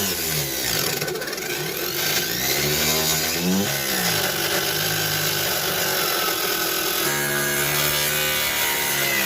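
A power tool running steadily through wood, with background music over it.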